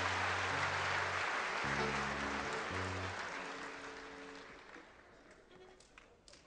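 A concert hall audience applauding. The clapping dies away over about four seconds to a few scattered claps near the end. A few held low notes from the band sound under it in the first three seconds.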